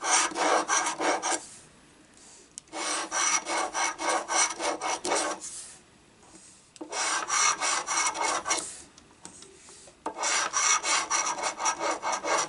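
A coin scraping the latex coating off a lottery scratch-off ticket in quick back-and-forth strokes. It comes in four bursts of a second or two each, one row of numbers at a time, with short pauses between.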